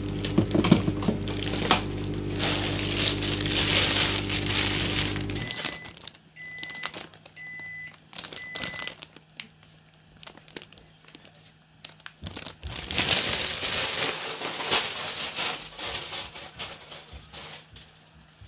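A blender motor runs with a steady hum and cuts off suddenly about five seconds in. Four short, high electronic beeps follow. Later a plastic bag crinkles as it is handled for several seconds.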